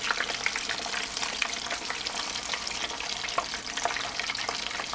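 Quesadillas deep-frying in hot oil in a deep fryer: a steady, dense sizzle with constant fine crackling.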